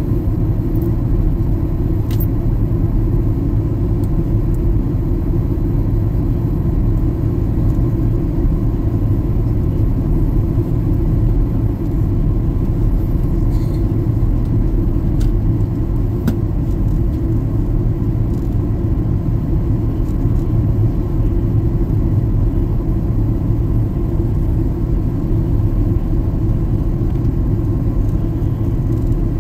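Steady low rumble of a jet airliner in flight, heard from inside the passenger cabin, with a few faint ticks.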